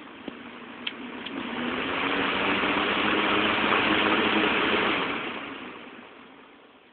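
Late-1990s Lakewood three-speed thermostat box fan: two sharp clicks in the first second, then the fan comes up to speed with a steady rush of air over a low motor hum, and the sound fades away over the last couple of seconds.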